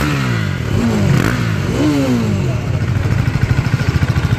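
KTM Duke 390's single-cylinder engine blipped three times, each rev falling quickly back, then settling into a steady idle.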